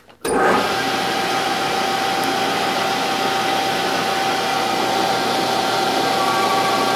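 Grizzly G0602 bench lathe switched on about a third of a second in and running steadily with a whine. It spins an aluminum part while a small boring bar takes a one-thousandth-inch skim cut inside the bore.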